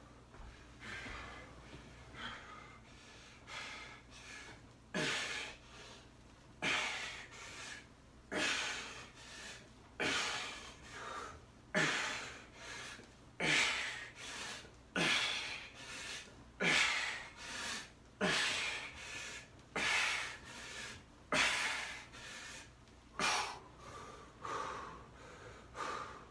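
A man breathing hard while lifting heavy dumbbells, with a sharp, forceful breath about every second and a half. The breaths are light at first and grow much stronger after about five seconds.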